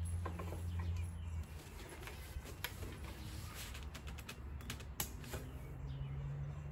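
Nylon rain cover rustling and scraping as hands tug and tuck it down around a portable electric cooler, with a few light clicks and taps. A low hum underneath drops off about a second and a half in.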